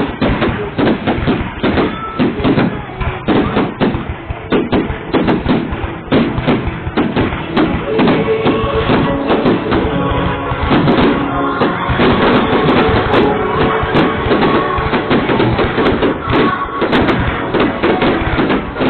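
Loud music with a drum beat and many thumping percussive hits.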